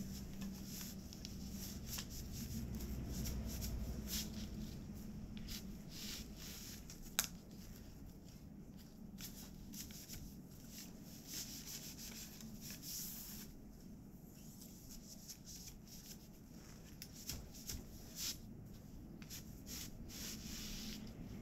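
Hand weaving on a floor backstrap loom with tree-bark fibre: threads rubbing and rustling as they are worked, with irregular wooden clicks and taps from the loom parts, one sharp click about seven seconds in.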